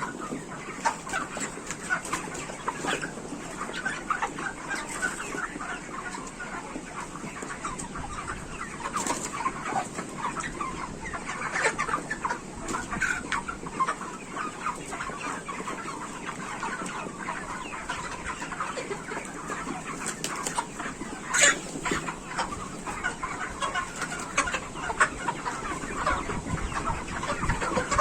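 A large flock of broiler chickens clucking and chattering continuously, many birds calling over one another. A single sharp click or knock stands out about three-quarters of the way through.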